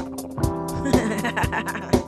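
Music: a woman singing to guitar over a steady beat of about two hits a second, with lighter quick ticks between the hits.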